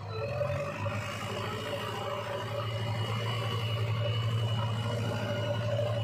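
JCB 3DX backhoe loader's diesel engine running steadily under working load, a low even pulsing hum with a steady high whine over it, growing slightly louder as the machine moves with a loaded front bucket.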